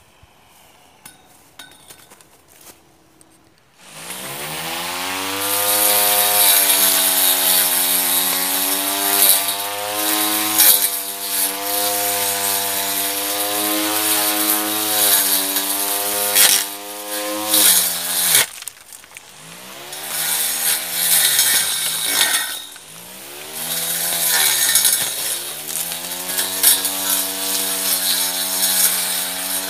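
Homemade grass trimmer, a 775 DC motor on 24 volts spinning a steel-plate blade: about four seconds in, the motor spins up with a rising whine and runs at speed while the blade hisses through grass. It cuts out briefly partway through, then runs again, its pitch dipping and recovering several times.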